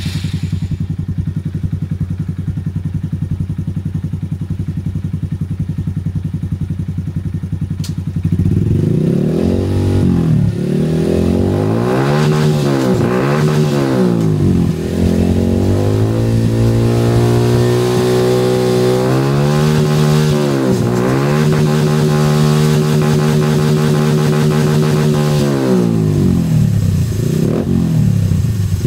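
Honda MSX 125's single-cylinder four-stroke engine breathing through a Leovince slip-on exhaust. It idles steadily for about eight seconds, then is revved over and over: short blips first, then longer revs held high before dropping back to idle, and a few more blips near the end.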